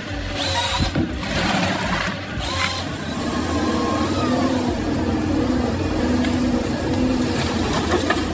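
Machinery running steadily with a low drone and a wavering whine over it. The sound changes abruptly a few times in the first three seconds, then holds.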